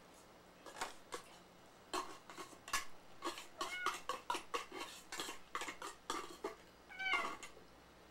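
Cats meowing briefly a few times, about four seconds in and again near seven seconds, among scattered short clicks and clinks.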